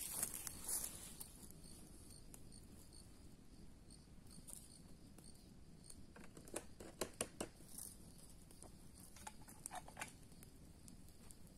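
Open wood fire burning with faint crackling, a brief hiss of flame at the very start. Clusters of sharp snaps come about six to seven and a half seconds in and again near ten seconds.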